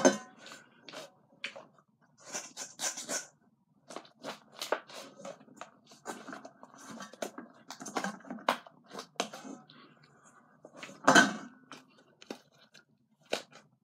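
Fluffy slime being scooped out of a stainless steel bowl and squeezed by hand: irregular sticky squelching and tearing, with the clicks and scrapes of a spoon against the bowl and one louder knock near the end.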